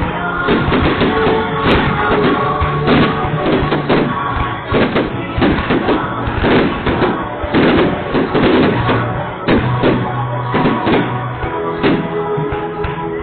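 Music with a steady drum beat and held bass notes.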